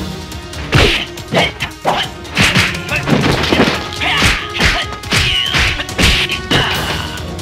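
A hand-to-hand scuffle: a rapid run of punch and hit impacts, about a dozen blows, over background music.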